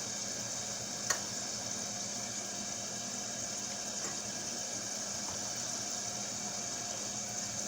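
Hot frying grease sizzling steadily in the skillet, with flour just added to start a gravy roux. One short click about a second in.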